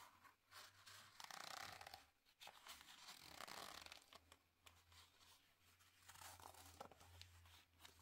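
Faint rustling and scraping of a sheet of tan leather being flexed and slid by hand across a cutting mat, in a few short stretches.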